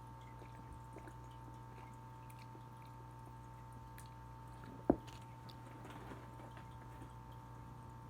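Faint mouth sounds of a person chewing a soft, chewy candy, over a steady low hum, with one sharp click about five seconds in.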